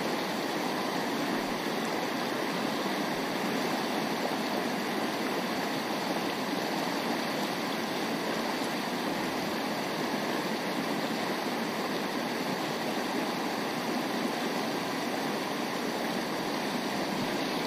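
Shallow, rocky mountain stream rushing steadily over rocks and riffles: an even, unbroken sound of running water.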